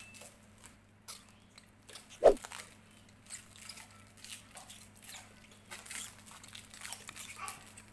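Thin plastic bag crinkling and rustling in the hands as it is wrapped tightly over the open end of a PVC pipe to seal it, with one sharper knock a little after two seconds in. A low steady hum runs underneath.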